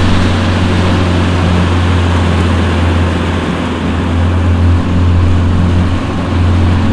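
Bass boat's outboard motor running steadily at speed, a low even drone under the rush of wind and water past the hull.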